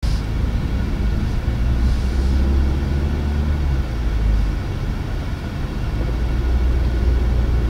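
Steady low rumble of road and drivetrain noise heard from inside the cabin of a moving GAC M8 minivan.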